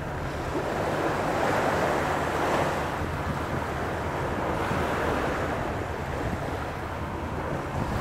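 Small waves breaking and washing up a sandy beach, the surf swelling twice, with wind rumbling on the microphone.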